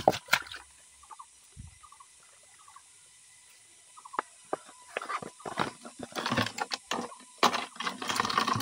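Leaves and twigs rustling and crackling as hands push through the undergrowth, with a few sharp clicks at the start. The rustling grows busier from about four seconds in, and near the end a plastic bag crinkles close by.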